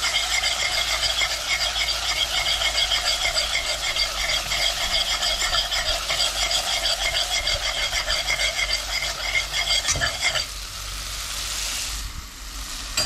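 A spoon stirring and scraping curry paste that sizzles as it fries down in a black pot; this is the paste being 'burned' until it starts to stick to the pot. The brisk scraping stops about ten and a half seconds in, leaving a softer sizzle.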